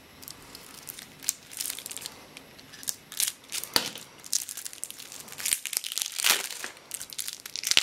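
Plastic wrapper on a pack of cards crinkling and tearing as it is peeled off by hand, in irregular crackles with a few louder ones.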